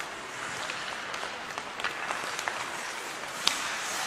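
Ice hockey play: skates scraping across the ice and the clicks of sticks on the puck over a steady hiss of rink noise, with one sharp crack about three and a half seconds in.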